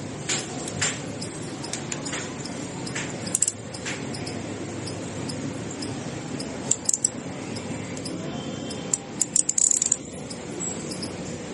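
Metal spanners and hand tools clinking and tapping against each other and the motorcycle's engine parts, in irregular bursts of sharp clinks over a steady background hiss.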